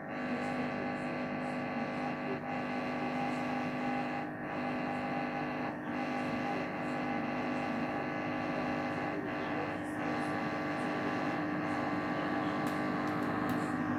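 Hotpoint NSWM843C washing machine running with a steady motor hum, broken by brief irregular dips every second or few: the chugging noise that the owner calls terrible.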